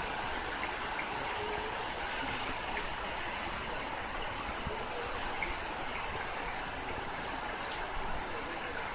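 Typhoon wind and rain, a steady rushing noise heard through a slightly opened apartment window.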